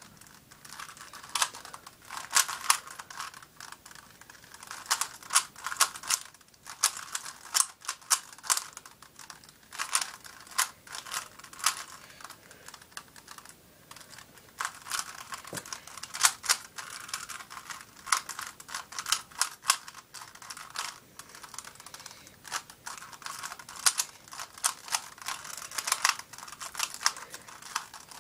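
Rubik's Cube being turned fast: rapid, irregular clicking of the plastic layers twisting, in quick runs with brief pauses between.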